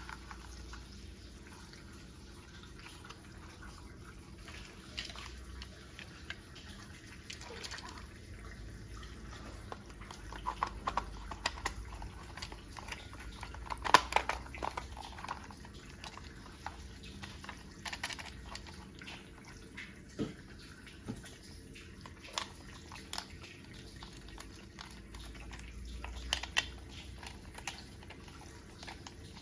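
Scattered clicks and knocks of plastic toy parts being handled and fitted together, the loudest about halfway through, over a faint steady hum.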